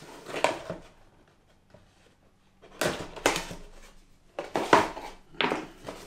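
Cardboard product box being handled and opened on a table: a few short scrapes and rustles with quiet gaps between them.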